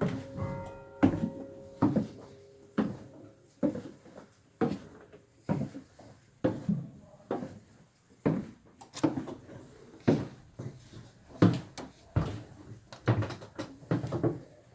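A series of knocks or thuds, about one a second at first and coming closer together in the last few seconds.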